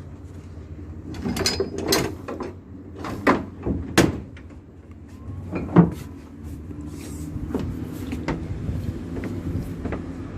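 Several loud clanks and knocks over the steady low hum of a fishing boat's engine, the knocks bunched in the first six seconds.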